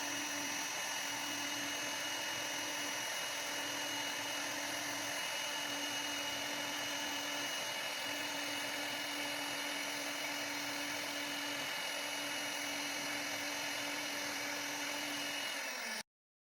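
CNC router spindle running steadily with a high whine of several fixed tones over a hiss; the pitch dips slightly just before the sound cuts off abruptly near the end.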